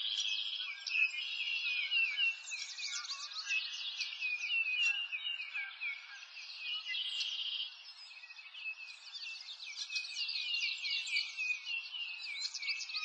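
Many small birds chirping together in a dense, continuous chorus of quick high chirps, dipping a little past the middle.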